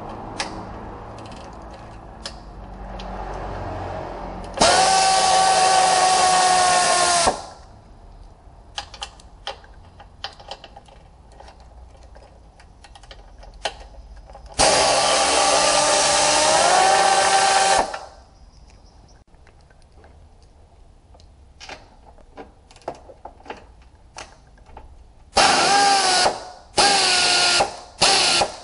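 Pneumatic air ratchet running in three spells, two of about three seconds each and then several short bursts near the end, spinning out bolts. The pitch jumps up partway through the second spell. Between the spells there are light metallic clicks and clinks of the tool and fasteners being handled.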